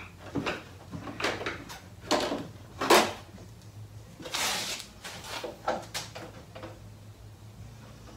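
Handling clatter: a series of irregular knocks and clicks, the sharpest about three seconds in, with a brief hissing scrape a little past four seconds. The knocks grow fainter and fewer near the end.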